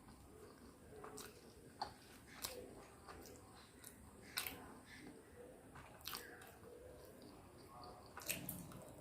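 Close-up eating sounds of momo dumplings and Maggi noodles being chewed, soft and wet, with a few sharp mouth clicks and smacks scattered through.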